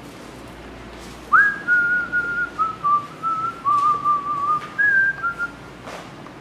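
A person whistling a short tune of about a dozen notes, starting about a second in and stopping shortly before the end, over a low steady background hum.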